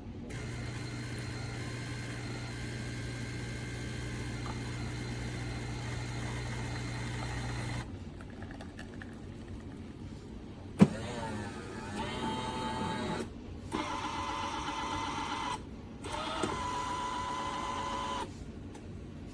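Automatic espresso machine running: a steady motor hum for about eight seconds. Then comes a sharp click and three short spells of a higher whine with short pauses between them.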